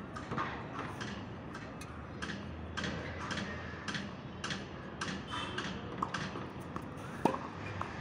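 A tennis rally on a hard court: an irregular scatter of light taps and clicks, with one sharp, much louder racket-on-ball hit near the end.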